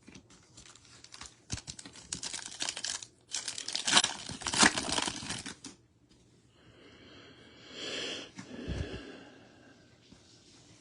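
Foil wrapper of a trading card pack being torn open and crinkled, in a run of dense crackling that is loudest near the middle, followed by a softer rustle of handling.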